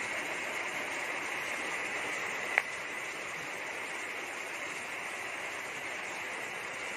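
Hands turning over a basin of drained small lòng tong fish: a steady wet rustling hiss with a faint high whine under it, and one sharp click about two and a half seconds in.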